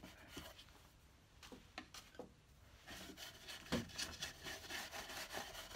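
A few faint light knocks, then from about three seconds in, faint repeated rubbing strokes of a hand-held pad on the wooden front of an antique writing slope.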